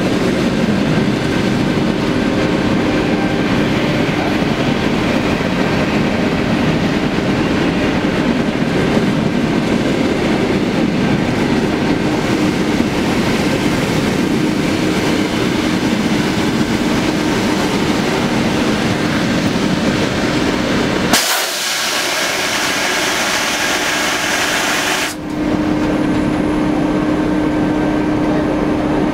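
Suburban electric train rolling past on the neighbouring track, a steady loud rumble of wheels with some clickety-clack, mixed with the steady hum of the TEP70BS diesel locomotive close by. About 21 s in, the rumble gives way to a loud hiss lasting about four seconds.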